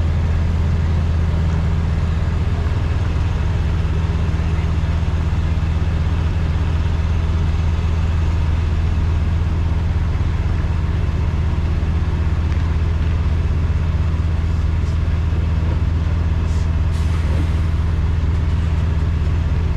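Peterbilt semi-truck's diesel engine running steadily at an even, low pitch.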